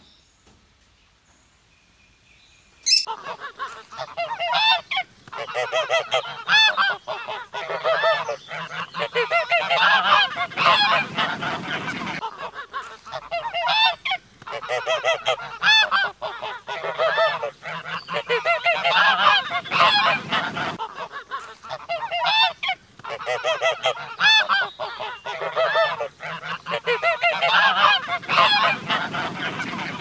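A flock of geese honking. It starts about three seconds in and goes on as many overlapping honks, with brief lulls.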